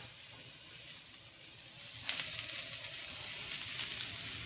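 Vegetables stir-frying in hot oil in a wok, a soft sizzle that turns louder about two seconds in, with scattered crackling pops.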